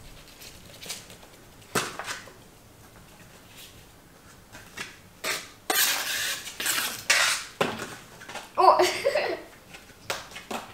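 Clear plastic box knocking and clattering on a laminate floor as it is pushed and played with by a Yorkshire terrier puppy. There are a few single knocks, then a longer rattling, sliding stretch about six seconds in.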